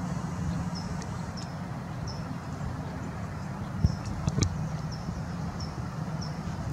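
Outdoor ambience: a steady low hum with a short high chirp repeating at an even pace, and a few sharp knocks about four seconds in.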